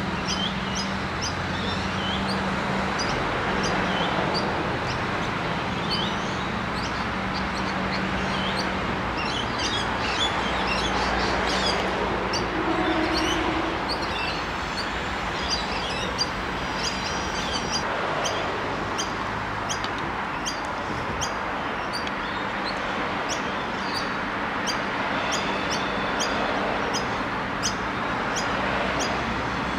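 Birds chirping over and over, over the steady low hum and rumble of an Adelaide Metro 3000 series diesel railcar pulling away from the platform.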